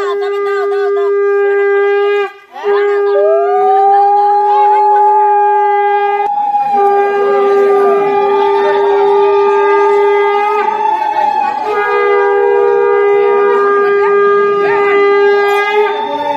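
Conch shells (shankha) blown in long, steady, loud notes, with a second, higher tone that rises and falls over the main one. The main note breaks off briefly about two seconds in and again about six seconds in, then starts again.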